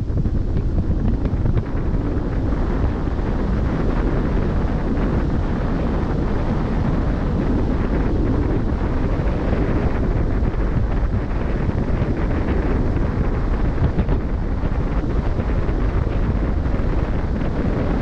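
Steady wind buffeting the microphone on the deck of a moving cruise ship: a heavy, low rush with no distinct events, with the wash of the open sea under it.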